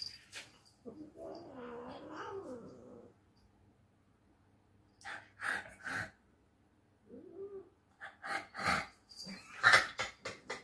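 A tabby cat gives a drawn-out, wavering yowl of protest for about two seconds, then a shorter one about seven seconds in. The calls are the sound of an annoyed cat being teased when it wants to sleep. Short rustling and handling noises come in between, clustered near the end.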